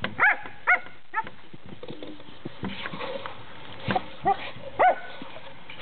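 A dog barking excitedly in short, high yips, five or six of them, at a mouse hiding in a woodpile. Scattered knocks and rustles come between the barks, mostly in the middle.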